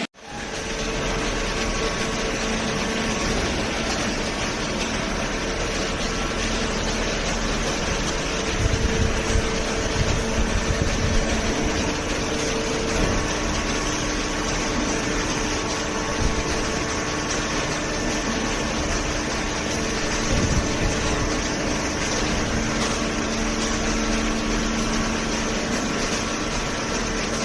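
Hydraulic baling press running: a steady mechanical noise with a faint hum, and a few low thumps between about 8 and 12 seconds in.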